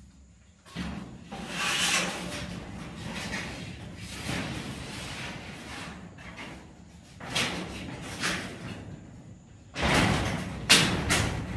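Hand building work: an irregular run of bangs, knocks and scraping, with the sharpest knocks near the end.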